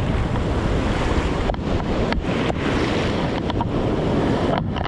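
Waves breaking on the shore in a winter storm swell, with wind rumbling on the microphone.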